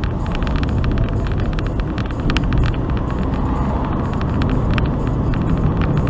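Steady low rumble of a car driving, heard from inside its cabin, with frequent small irregular clicks and rattles throughout.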